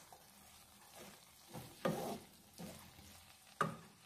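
A wooden spatula stirs and scrapes cooked rice around a nonstick pan. It comes as a few separate faint strokes, the loudest about two seconds in and one near the end.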